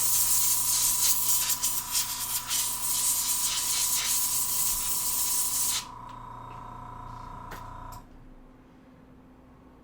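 Pressurised cleaning spray hissing for about six seconds as flux is cleaned off the console's circuit board. Under it runs a steady motor hum with a high whine, which carries on more quietly for about two seconds after the spray stops.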